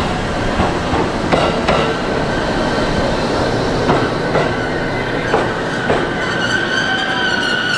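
JR Central 313 series electric multiple unit pulling into the platform, its wheels clicking irregularly over rail joints over a steady rolling rumble. About six seconds in, a high whine sets in as the train slows.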